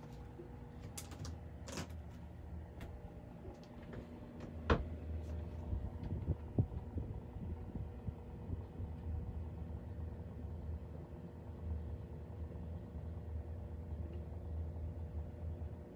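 A low steady hum with a faint steady tone above it, broken by a few sharp knocks and clicks, the loudest about five seconds in.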